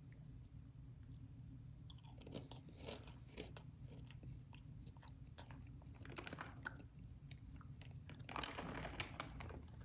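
Faint, close crunching of a person chewing dry pieces of Sour Patch Kids cereal. It starts about two seconds in and is densest near the end.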